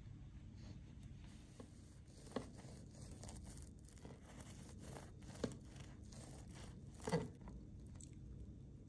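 Serrated bread knife sawing through a loaf of almond-flour bread on a cutting board, a soft rasping crackle of the crust and crumb, broken by three sharper knocks.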